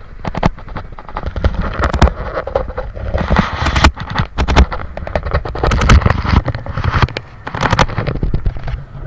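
Loud, irregular crackling and rumbling handling noise from a phone microphone being jostled and rubbed against clothing on a moving boat.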